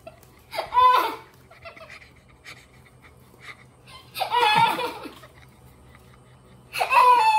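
Three short high-pitched vocal outbursts, each under a second: about a second in, around four seconds in, and near the end, with faint light knocks between them over a low steady hum.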